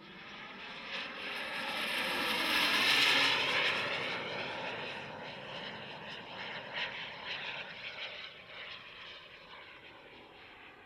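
Radio-controlled ViperJet model jet flying past. Its jet noise swells to a peak about three seconds in, then slowly fades as it moves away.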